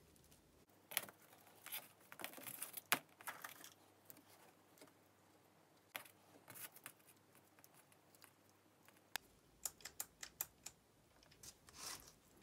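Faint handling noises of wiring work on a drill's trigger switch: scattered small clicks, taps and rustles of wire ends and the plastic switch housing, in short runs.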